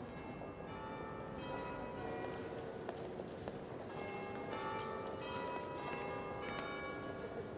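Church bells ringing: several bells struck one after another, their tones overlapping and ringing on together.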